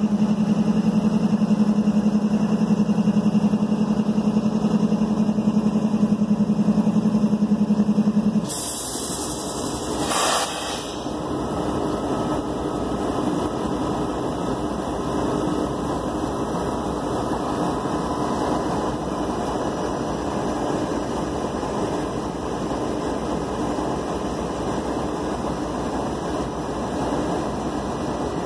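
Diesel-electric freight locomotives idling while the train stands stopped. A loud steady hum for the first eight seconds or so cuts off abruptly, there are two short bursts of hiss about nine and ten seconds in, and then an even idling drone carries on.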